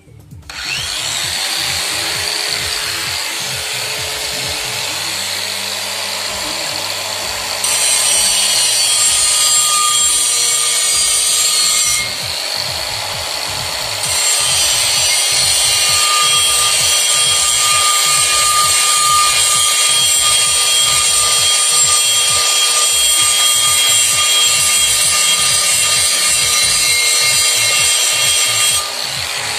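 Electric angle grinder starting up and running with a steady whine. It grinds against the inside of a Mahindra Bolero brake drum, which makes the sound louder and harsher, from about a quarter of the way in. The grinding eases off briefly a few seconds later, then resumes until just before the end.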